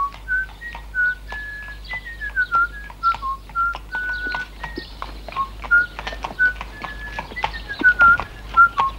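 A tune whistled in clear held notes with a few falling slides, over the clip-clop of a horse's hooves walking on a hard road.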